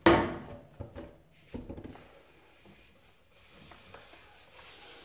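A short, sharp squeak of latex as the hand pump's nozzle is pulled off a balloon neck, then a few quieter rubbing and handling sounds on the balloon rubber.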